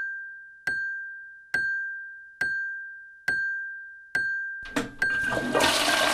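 Cartoon stopwatch sound effect: a steady high tone with a bright ringing tick about every second, five times. About five seconds in, a swelling rush of noise takes over, a toilet flushing behind the bathroom door.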